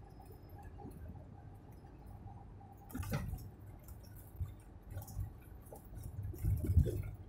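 Inside a truck cab at highway speed: a low engine and road rumble, with a sharp knock about three seconds in and a cluster of louder knocks and rattles near the end.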